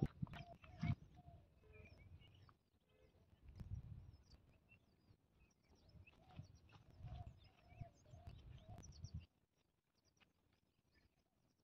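Near silence: faint outdoor ambience with wind rumbling on the microphone, scattered distant bird chirps and a faint wavering animal call, all dying away about nine seconds in.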